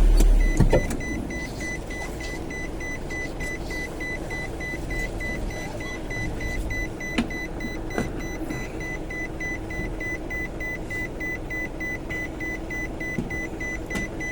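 Recycling lorry's warning alarm beeping in a steady run of short, evenly spaced beeps over the lorry's engine running, with a heavy low thud at the start.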